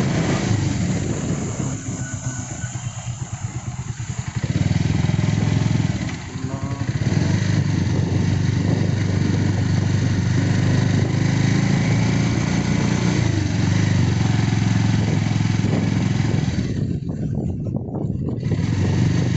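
Motorcycle engine running steadily as the bike is ridden along a road, with a constant rushing noise. The engine eases off about two seconds in and pulls again about four and a half seconds in.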